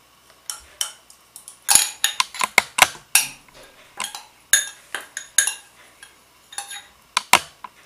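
Metal spoon scraping and clinking against the inside of a glass jar, scraping out sweetened condensed milk: a quick, irregular run of sharp clicks and scrapes, busiest between about two and three seconds in and thinning out afterwards.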